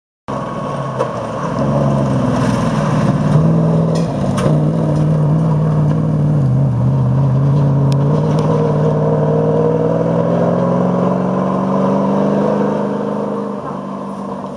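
GAZ-51 rally truck's engine running hard under load, its pitch dipping then climbing steadily, fading near the end as the truck draws away. A few sharp clicks are heard along the way.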